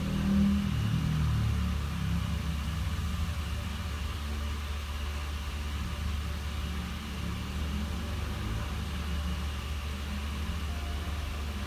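Steady low background rumble, with no clear event standing out.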